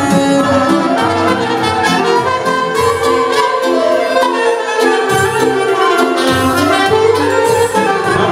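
Loud live band dance music with a horn-led melody over a steady beat, played for a hand-in-hand circle dance.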